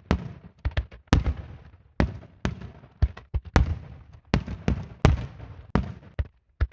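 Aerial firework shells bursting in rapid, irregular succession, about three sharp bangs a second, each followed by a short rumbling echo.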